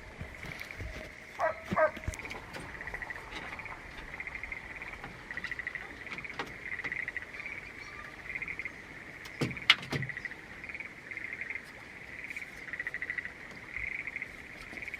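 Outdoor animal chorus of short pulsed chirps repeating every second or so, with two brief barks about two seconds in and a single sharp knock about halfway through.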